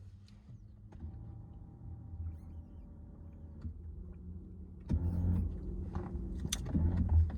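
Low rumble inside a car, with a steady motor hum from about a second in until nearly four seconds, then louder knocks and handling noise near the end.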